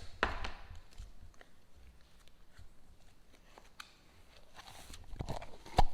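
Hands handling slime and the plastic balloon-stuffing machine: soft, scattered small clicks and squelchy crackles, with one sharp click near the end.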